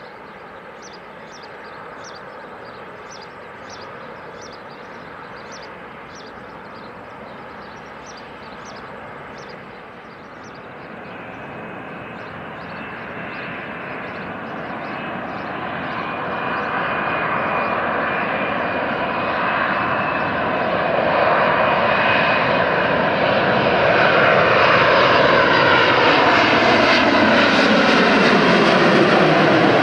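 Boeing 787 airliner's jet engines on approach, growing steadily louder over the last two-thirds as it passes low overhead, with a high whine running through the engine noise.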